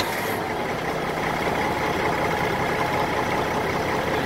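Caterpillar 3406C 14.6-litre diesel of a fire engine idling steadily, running after being started off a lithium jump-starter pack.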